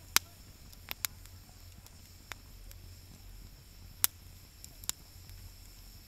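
Wood fire in a bonfire stand crackling, with a handful of sharp pops at irregular intervals.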